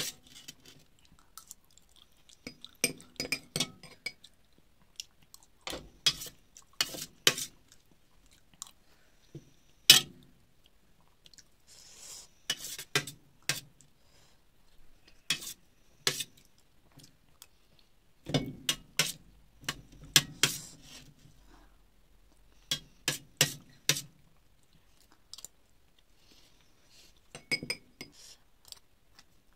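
Chewing and mouth sounds, with a steel spoon scraping and clinking irregularly on a stainless steel plate and once against a glass bowl.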